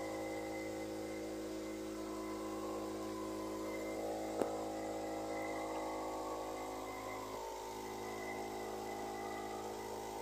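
A steady hum made of several fixed tones, with one sharp click about four and a half seconds in.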